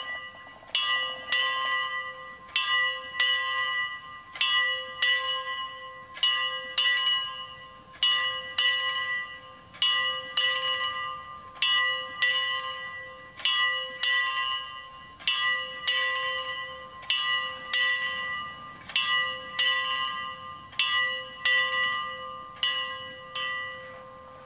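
A single hand-rung church bell cast in 1734, swung by its rope so the clapper strikes at each swing, about one stroke a second, each stroke ringing on into the next. Rung in full swing ('a distesa') as the call to weekday mass; the strokes stop near the end and the last one dies away.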